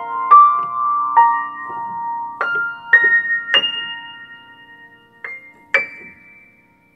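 Upright piano played slowly: single treble notes struck one at a time, climbing in pitch, each left to ring and die away. The notes grow sparser and softer, and the last one rings on and fades out near the end.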